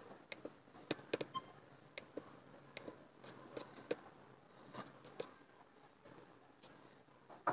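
Faint, irregular clicks of fingers on a laptop's keys and trackpad, about a dozen spread over several seconds.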